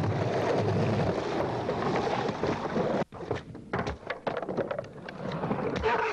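Water sloshing and splashing as a person wades through shin-deep water. About three seconds in it cuts off suddenly and gives way to quieter scattered clicks and scuffs.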